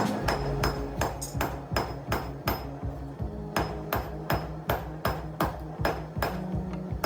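Blacksmith's hammer striking steel on an anvil in a steady rhythm of about three blows a second.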